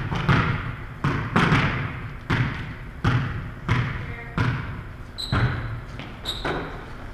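Volleyball impacts ringing out in a gymnasium, a sharp echoing smack roughly once a second, with two short high sneaker squeaks about five and six seconds in.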